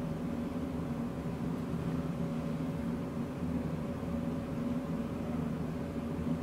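Steady low hum with a constant faint tone above it, like machinery or ventilation running.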